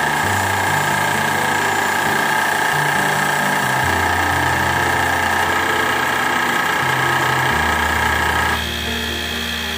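Wood lathe motor running steadily with a high whine while a hand-held chisel turns a spinning wooden blank; the whine changes about nine seconds in. Background music with a slow stepping bass line plays underneath.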